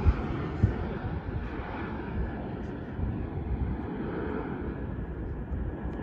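Jet airliner's engines: a steady rushing roar with a faint whine that slowly fades, with a couple of low thumps in the first second.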